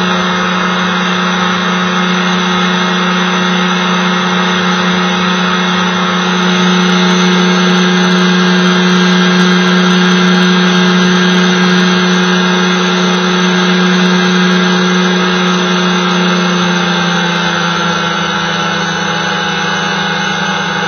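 Small aircraft's engine running steadily in flight, heard from on board, with a constant low hum and higher overtones; the note shifts slightly about three-quarters of the way through.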